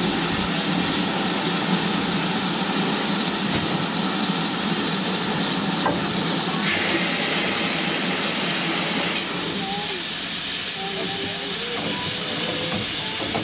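Steam hissing steadily from GWR 5600-class 0-6-2 tank locomotive No. 5643.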